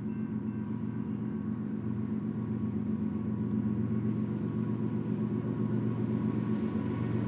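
Diesel locomotives at the head of a BNSF stack train, their engines making a steady low drone that slowly grows louder as the train approaches.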